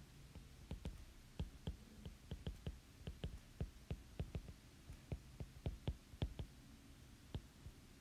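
Stylus tapping on a tablet's glass screen while handwriting: an irregular run of light, sharp ticks that stops near the end.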